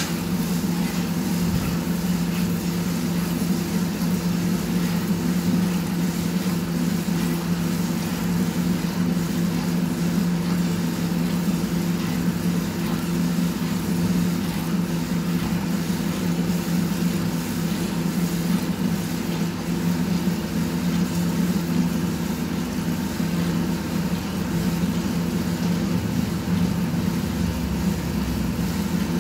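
A steady mechanical hum, like an electric motor or fan running, holds unchanged throughout.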